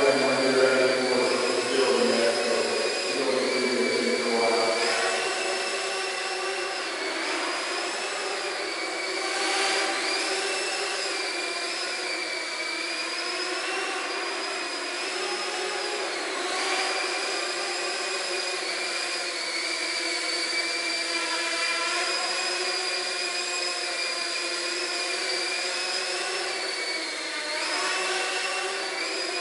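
Small quadcopter drone's propellers and motors whining in flight, the pitch stepping up and down as the throttle changes.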